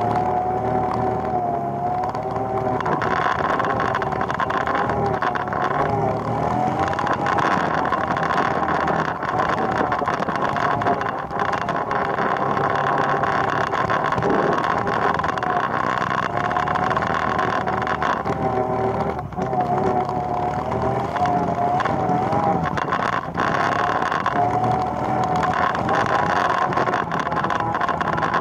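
ATV engine running steadily while riding, its pitch wavering up and down slightly with the throttle.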